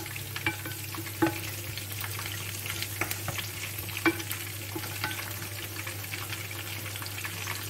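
Sliced onions sizzling in a terracotta tajine as they soften, stirred with a wooden spoon that taps lightly against the clay a few times. A steady low hum runs underneath.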